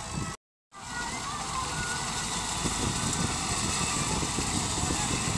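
Tractor engine running as it drives a front-mounted wheat reaper through the standing crop, under a steady rushing noise. The sound cuts out completely for a moment about half a second in, then resumes.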